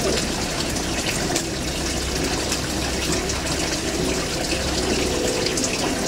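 A steady rushing noise with a low hum underneath, unchanging throughout.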